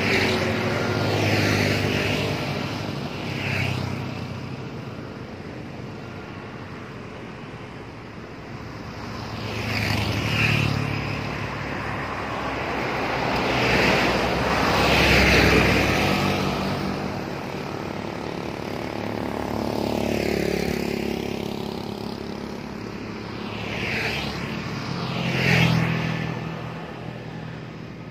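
Road traffic passing one vehicle at a time: motorcycles and a light cargo truck go by, each engine and tyre sound swelling and then fading. The truck's pass, about halfway through, is the loudest.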